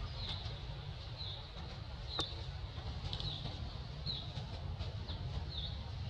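Short high chirps repeated roughly once a second over a steady low rumble, with one sharp click about two seconds in.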